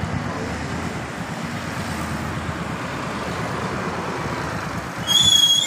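Steady road and wind noise from a vehicle moving along a town street. About five seconds in comes a loud, high-pitched squeal lasting about a second.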